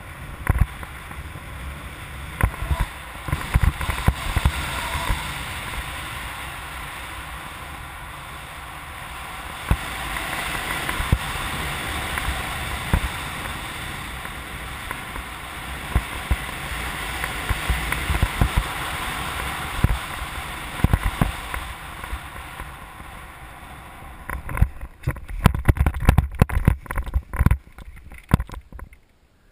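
Airflow rushing over the microphone of a camera mounted on a flying hang glider, with gusty buffeting thumps that swell and ease. In the last few seconds it breaks into irregular knocks and scuffs as the glider comes down to land, then drops away.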